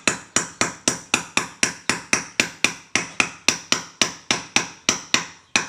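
Quick, light hammer taps, about four a second and evenly spaced, each with a short metallic ring, driving a bearing into a Honda Vario 110 scooter's CVT driven pulley.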